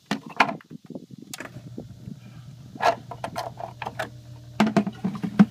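Plastic bucket and lid knocking and clicking as they are handled, the loudest sounds, and about one and a half seconds in a steady low electric hum starts: the hydroponic system's pump being switched on at a power strip.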